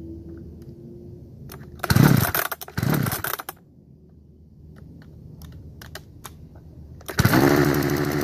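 Vintage Partner chainsaw power head being pull-started: two short loud bursts as the starter is pulled, about two and three seconds in, then a few light clicks. About seven seconds in the two-stroke engine catches and runs steadily with a fast even firing pulse.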